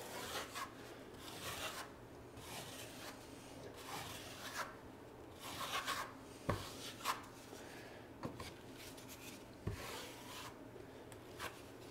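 Metal taping knife wiping and scraping joint compound over paper drywall tape on a wall, in faint repeated strokes that squeeze the excess mud out from under the tape. Two light knocks sound partway through.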